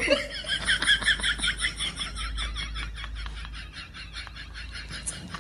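Rapid, even run of short animal chirps that slowly fade toward the end, over a low steady hum.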